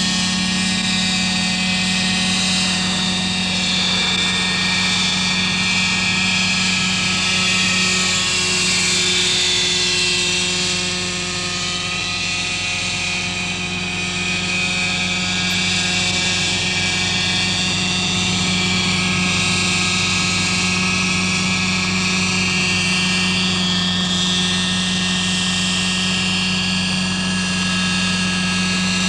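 Radio-controlled model helicopter's two-stroke glow engine and rotors running steadily in flight, a high buzzing whine whose pitch rises and falls a little in places.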